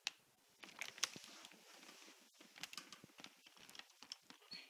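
Golden retriever puppy's quiet noises in her sleep: a run of soft clicking and smacking sounds, with a brief thin squeak near the end.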